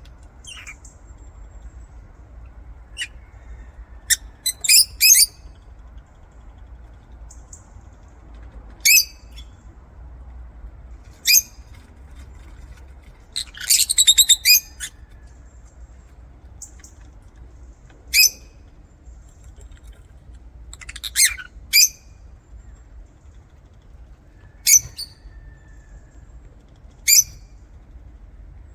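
Lovebirds giving short, shrill chirps every few seconds, with a longer burst of chattering calls about halfway through. A faint low hum runs underneath.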